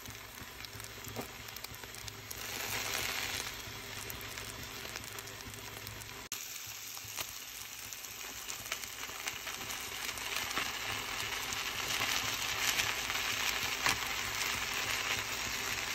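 Onion, tomato, garlic, cinnamon sticks and dried guajillo, ancho and pasilla chiles sizzling and crackling as they fry in oil in a pan. There is a brief break about six seconds in.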